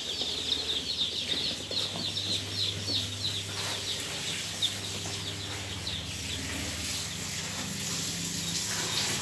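Newly hatched Joper chicks cheeping in a box, many quick, high, falling peeps that thin out and fade about four seconds in. A steady low hum from the running egg incubators lies underneath.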